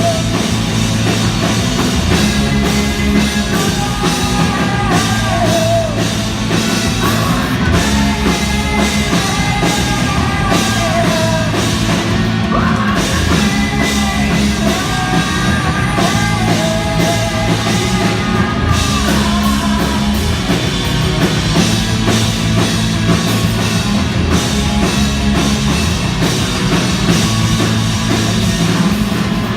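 Rock band playing a song live in a concert hall: drums, bass and electric guitars, with a sung melody over them.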